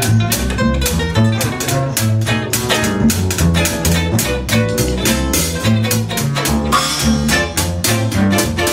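Acoustic guitar and plucked double bass playing an instrumental passage, with a walking bass line under quick picked guitar notes and no singing.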